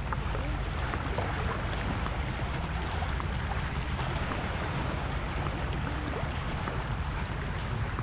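Steady wash of sea waves on a beach, with a low rumble underneath.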